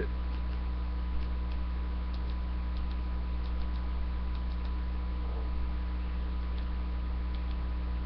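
Steady electrical mains hum, with faint clicks from a Maglite XL50 LED flashlight's tail button being pressed several times to cycle its modes toward strobe.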